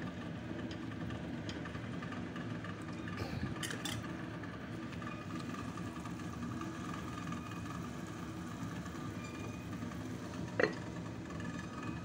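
A steady low mechanical hum of kitchen machinery runs throughout, with handling noise around three and a half seconds in. Near the end comes a single sharp clink as the glass lid is set on the ceramic casserole pot of simmering soup.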